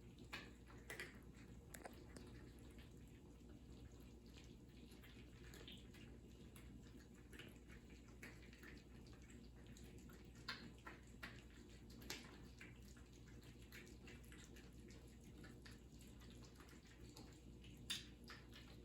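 Cats eating: faint, irregular small clicks and smacks of mouths at food, a few of them louder, over a low steady hum.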